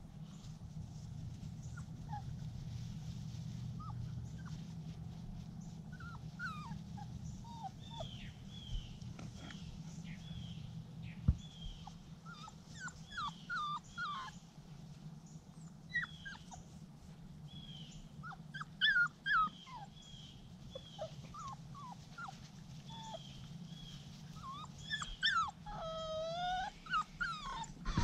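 Standard Schnauzer puppies whimpering and crying in many short, high whines that come thicker from about six seconds in. A steady low hum sits underneath in the first half and fades out around the middle.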